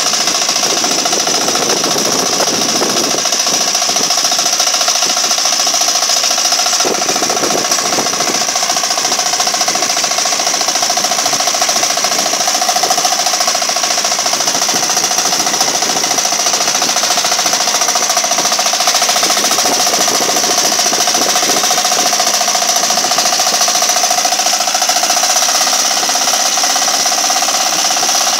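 Small engine of a walk-behind hand tractor (kuliglig) running steadily with a fast, even rattle while it pulls a plow through grassy soil.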